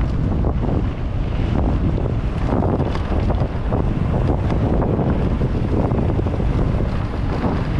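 Wind buffeting the microphone of a mountain bike's on-board camera as the bike rolls down a dirt singletrack, with tyre noise on the dirt and frequent small clicks and knocks from the bike over bumps.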